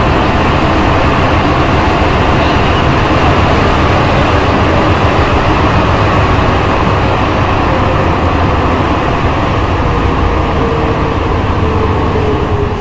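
Santiago Metro NS-93 rubber-tyred train running at speed through a tunnel, heard from inside the car: a loud, steady rumble of tyres and traction motors. A faint steady whine joins in during the second half.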